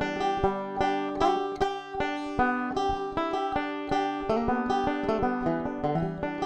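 Resonator banjo fingerpicked with finger picks in a quick, continuous run of plucked notes, heard straight through a Pick Up the World piezo transducer pickup with no EQ.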